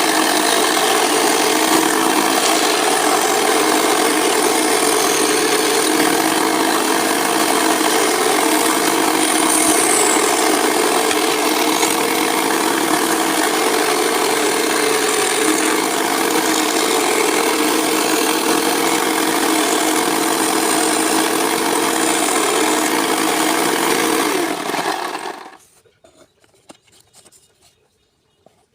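A power saw runs and cuts wood with a steady whine and the hiss of sawing. It stops about 25 seconds in, leaving only a few faint light ticks.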